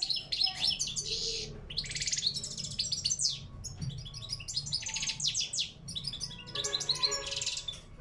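European goldfinch (parva race) singing in a cage: a fast, run-on stream of twittering, trilled and buzzy notes with brief pauses, breaking off near the end.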